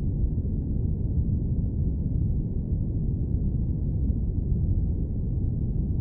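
Steady airplane cabin noise in flight: a constant deep, muffled roar with almost no high hiss and no changes.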